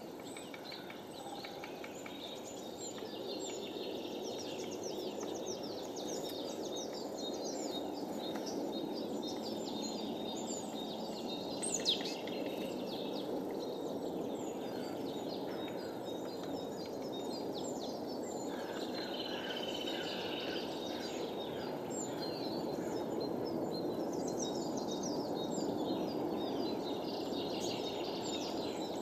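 Many small songbirds chirping and calling, short high notes coming throughout, with one louder call sweeping down in pitch about twelve seconds in. Under them runs a steady low background rush.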